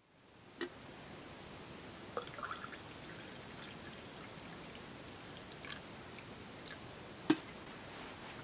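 Coffee being poured from a glass carafe into a mug, a faint trickle, with a few light clicks and one sharper knock near the end.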